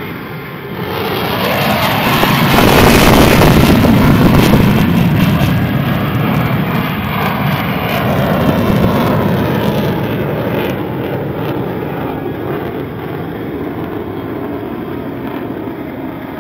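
F-16 fighter jet flying past, its jet engine noise swelling about a second in, loudest a few seconds later, then fading slowly with a smaller rise midway.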